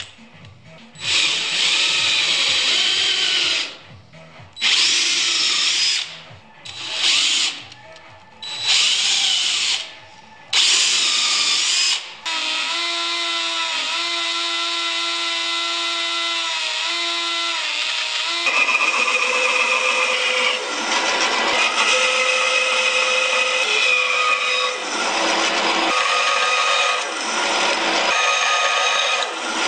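A cordless drill runs in five short bursts. Then a flexible-shaft rotary tool whines steadily as its burr carves walnut, and from about two thirds of the way in a bandsaw cuts wood, its sound dipping briefly a couple of times as the cut changes.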